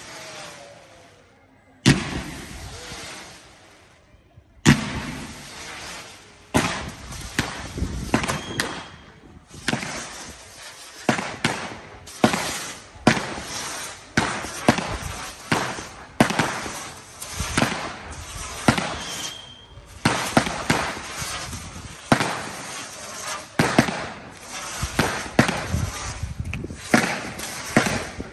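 Fireworks display: aerial shells bursting with loud bangs, two single bangs a few seconds apart, then from about six seconds in a rapid, almost continuous run of bursts, one or two a second, with crackle between them.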